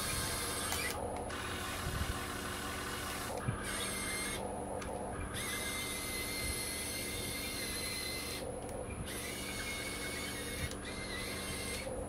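Small electric gear motors of a Huina 1580 RC excavator whirring and whining as it works, the whine shifting in pitch. The motors stop briefly about four or five times.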